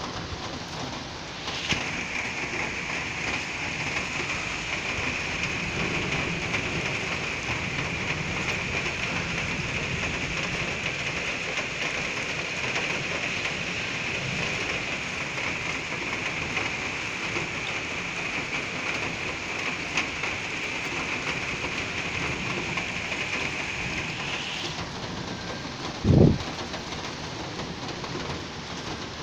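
Heavy rain falling steadily, with faint rumbles of thunder in the background. About 26 seconds in there is one short, loud, low thump.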